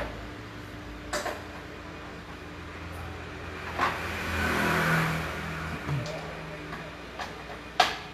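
Workshop background noise with a few sharp clicks and knocks, the loudest near the end, and a motor sound that swells and fades between about four and five and a half seconds in.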